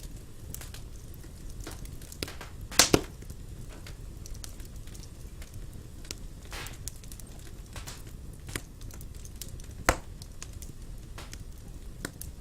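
Wood fire burning in a fireplace: a steady low rumble of flames with scattered sharp crackles and pops, the loudest a double pop about three seconds in and another near ten seconds.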